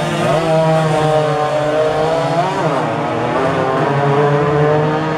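Motorcycle engines revving hard as the bikes race past, their pitch rising and falling, with more than one engine heard at once.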